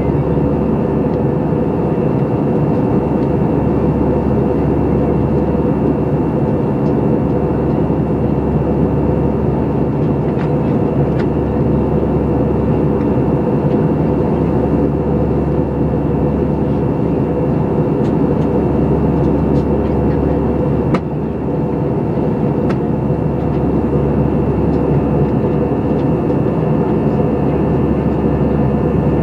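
Steady cabin noise of an airplane in flight: engine and airflow drone with a few steady tones in it. A faint click and a brief dip in loudness come about two-thirds of the way through.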